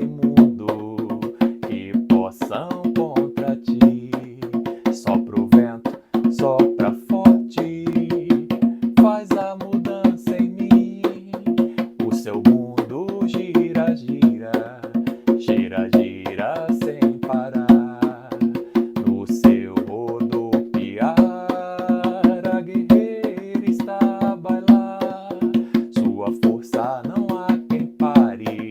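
Music: a devotional song with hand drums and clicking percussion keeping a fast rhythm over a steady held backing tone, with a voice singing in places.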